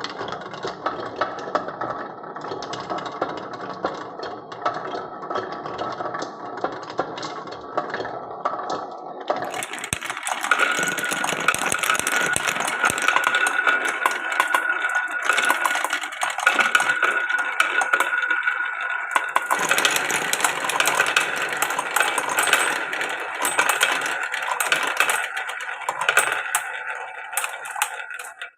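Many glass marbles rolling and clacking continuously along a wooden marble run. About ten seconds in, the sound changes abruptly to a brighter, busier clatter with a steady ringing tone running through it.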